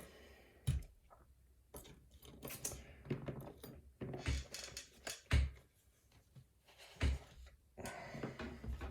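Metal lock pick and tension tool scraping and clicking against the pins inside a challenge lock, with a few sharper knocks as the lock is handled.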